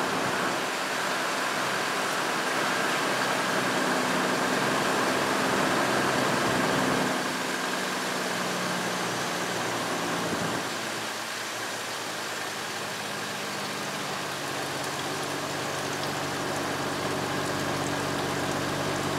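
2002 GMC Envoy's 4.2-litre inline-six idling steadily in park, its transmission pump pushing old 4L60E fluid out of the disconnected cooler line so that it streams through a hose into a drain pan. The sound drops a little about 7 seconds in and again about 10 seconds in.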